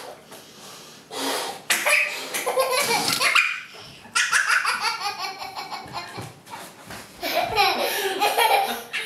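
A toddler laughing in three long fits, the first starting after a quiet second and a half.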